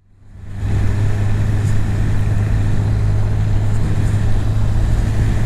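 Honda CB1000R's inline-four engine running at a steady cruise, heard on board over the hiss of tyres and wind on a wet road. The sound fades in at the start.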